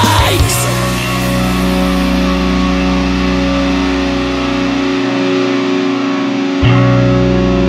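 Instrumental passage of a melodic hardcore song: sustained, ringing electric guitar chords over a low bass, no vocals. A dense, shouted section cuts off just after the start; the bass drops out about five seconds in and comes back with a hit a second and a half later.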